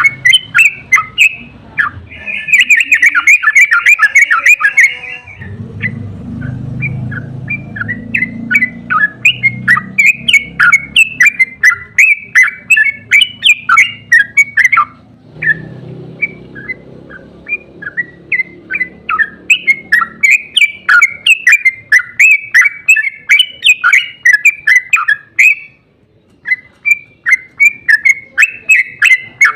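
Yellow-vented bulbul (trucukan) singing a long, rapid run of chattering notes several times a second, the 'ropel' song used as a lure, broken by short pauses about a fifth, half and most of the way through. A low rumble sits under the song at times.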